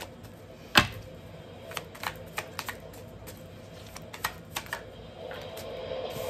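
Tarot cards being shuffled and handled: scattered light clicks, irregularly spaced, with one sharper knock about a second in.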